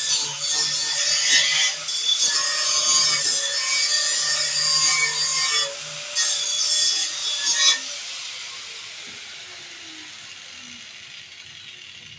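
Electric angle grinder grinding the steel frame at a body mount on a CJ7 Jeep. About eight seconds in it is switched off and winds down, its whine falling in pitch as it fades.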